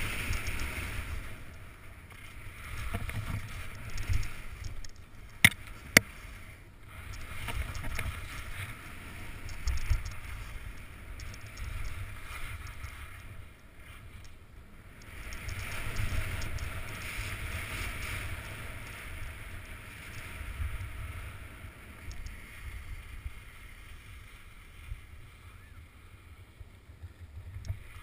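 Skis hissing and scraping over packed snow, swelling and fading with each turn, over a constant wind rumble on a GoPro's microphone. About five and a half seconds in come two sharp clicks, half a second apart, the loudest sounds.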